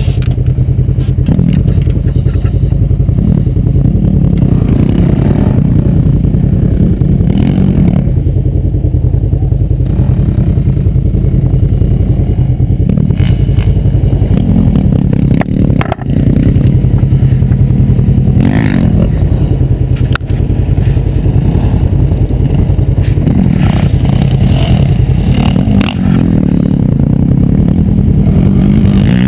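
Off-road vehicle engine idling loudly close to the microphone, with a few brief revs and a couple of sharp clicks.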